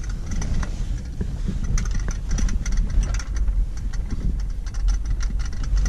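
Vehicle driving over a rough dirt road, heard from inside the cab: a steady low rumble with frequent rattles and knocks from the bumps.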